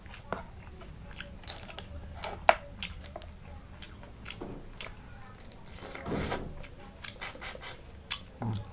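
Close-up eating sounds of a man eating rice and field snails by hand: chewing and lip smacks with scattered sharp clicks, one louder click about two and a half seconds in, and a half-second noisy sound about six seconds in.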